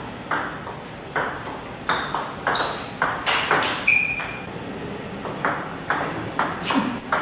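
Table tennis ball struck back and forth with Butterfly Super ZLC carbon blades and bouncing on the table in a rally: sharp clicks about twice a second. A couple of brief high squeaks around the middle.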